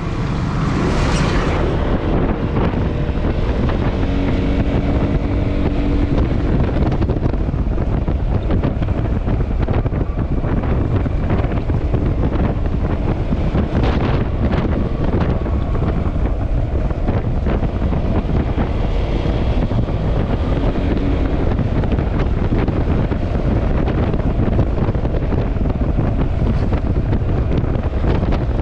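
Wind rushing over the microphone on a moving Yamaha XMAX scooter, with the scooter's engine running underneath as a faint hum that shows through now and then.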